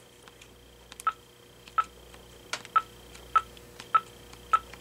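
Vtech 6773 cordless handset keypad tones as a phone number is dialed, about seven short beeps roughly two-thirds of a second apart starting about a second in.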